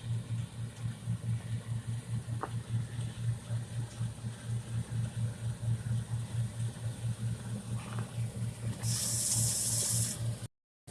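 Farm machinery engine running with a low hum that pulses several times a second, under a steady hiss; near the end a brief burst of high hiss, then the sound cuts out.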